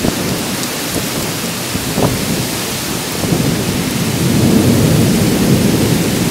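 Heavy summer downpour, rain pouring steadily, with a low rumble that swells about four seconds in.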